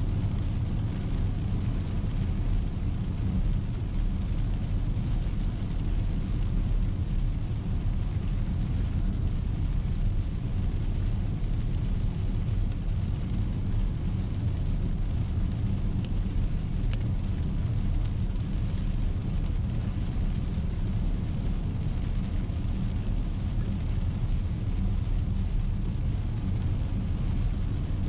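Steady low rumble of a car's tyres and engine heard from inside the cabin while driving on a wet road in the rain.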